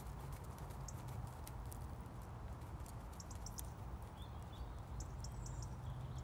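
Horse cantering on a soft arena surface: muffled hoofbeats with short clicks, over a steady low rumble.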